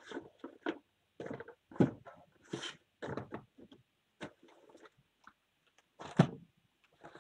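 Handling noise: irregular knocks, clicks and rustles from a trading-card box and its packs being picked up and set down. The loudest knock comes about six seconds in.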